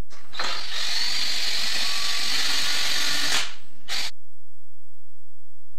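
Cordless drill running for about three seconds, then a brief second burst of a fraction of a second.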